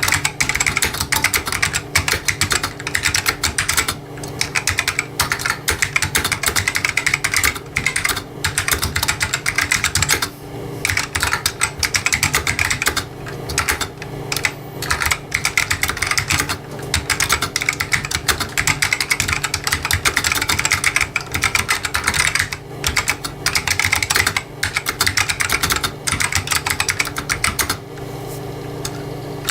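Fast continuous typing on a 2003 Matias Tactile Pro mechanical keyboard with Alps SKBM gray switches: dense key clicks with a few short pauses, stopping shortly before the end. A steady low hum sits underneath.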